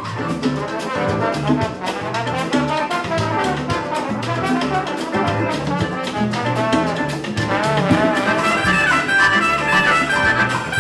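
Music with a brass melody over a steady beat.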